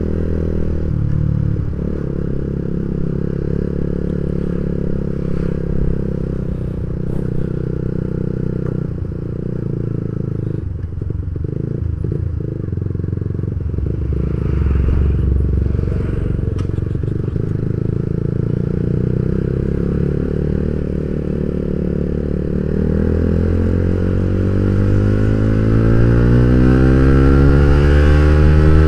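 Yamaha Vixion motorcycle's single-cylinder engine running at low, fairly steady revs in slow traffic, then rising steadily in pitch over the last several seconds as it accelerates, with a sharp drop at an upshift near the end.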